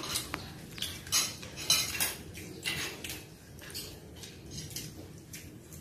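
Spoons and plates clinking and scraping during a meal: a string of short, irregular clatters.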